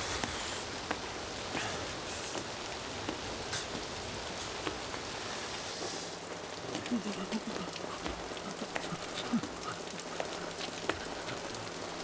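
Steady rain falling, an even hiss with scattered drops and drips ticking through it. About halfway through, a low steady hum comes in underneath.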